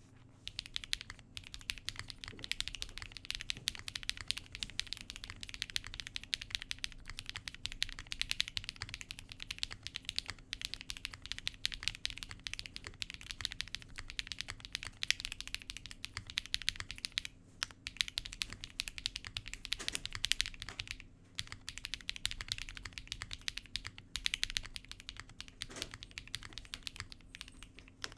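Typing on a Cannonkeys Bakeneko65 mechanical keyboard with lubed Akko CS Matcha Green linear switches and lubed, clipped, holee-modded stabilizers: a fast, continuous stream of keystrokes, with a few short pauses.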